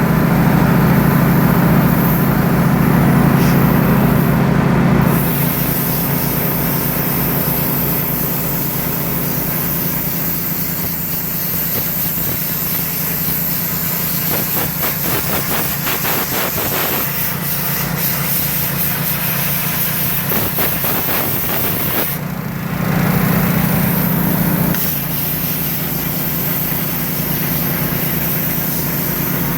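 Plasma cutter running: a loud, steady hiss of air over a hum, louder for the first five seconds and again for a couple of seconds about three quarters of the way through.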